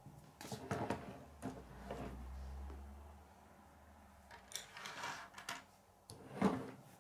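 Plastic K'nex pieces clicking and knocking as they are handled and set on a wooden table, in scattered short clicks, with a low rumble from about one and a half to four seconds in.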